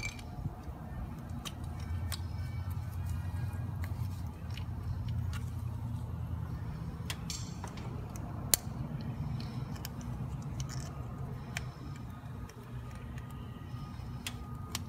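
Scattered light clicks and taps of metal engine parts being handled at a DT466's high-pressure oil rail, with one sharper click about eight and a half seconds in, over a steady low hum.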